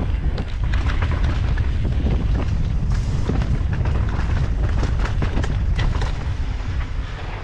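Wind buffeting an action camera's microphone over the rumble of knobby mountain-bike tyres on a dirt singletrack descent, with frequent sharp clicks and rattles from the bike.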